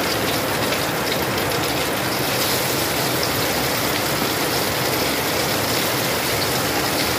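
Catfish pieces frying in hot oil in a wok, the oil sizzling steadily with fine crackles. This is plain hot oil before any flour is added to calm it.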